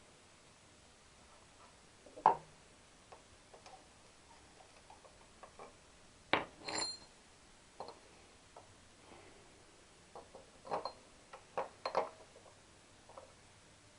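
Scattered clinks and knocks of metal tools and parts being handled and set down on a workbench, one sharp clink with a brief high ring about six and a half seconds in and a quick cluster of clinks near the end.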